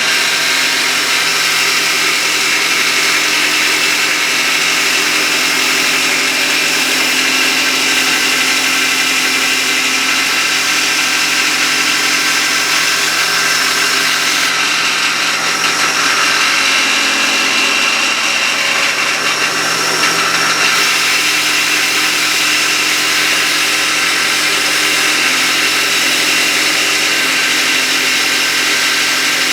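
Electric sander running steadily while rough-sanding the radius into a guitar fretboard.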